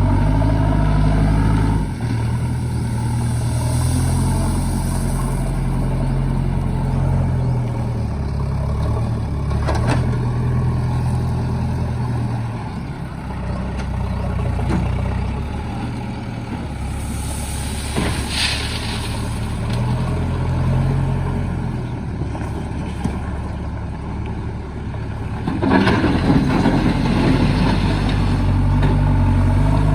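Diesel engine of a JCB 3DX backhoe loader working, its engine speed rising and falling as it digs and loads soil. A few sharp knocks come midway, and a louder rattling burst comes near the end.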